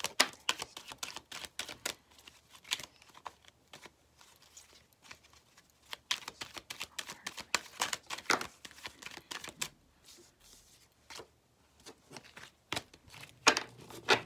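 Tarot cards being shuffled and handled: quick, irregular flicks and clicks of card stock in clusters with short pauses between.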